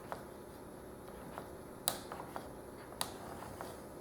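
Scattered sharp clicks and light knocks as over-tightened fasteners on a router mount are worked loose by hand, with two louder clicks about a second apart just before and after the middle.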